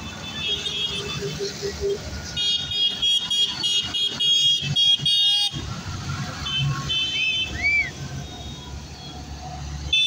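Tractor engines rumbling past, with a horn sounding in a rapid series of high toots for about three seconds, then a few short rising-and-falling whistle-like tones.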